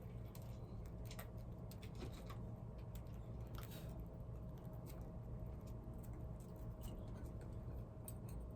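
A small pet crunching crispy treats: irregular crisp clicks and crunches, over a steady low hum.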